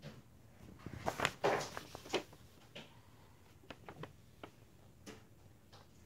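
Folded paper subway map rustling and crinkling as it is handled. A burst of crackles comes about a second in, followed by a few scattered light crinkles and clicks.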